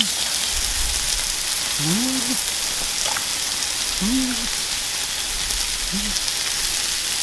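Slices of beef sizzling on a small griddle over a camping stove, a steady frying hiss. A person gives four short hums, rising and falling, about two seconds apart.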